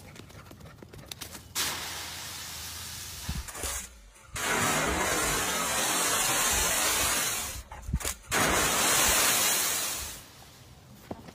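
Dry fallen leaves rustling and crunching as a dog leaps and burrows through a leaf pile. There are two loud stretches, about three seconds and then about two seconds long, separated by a short break.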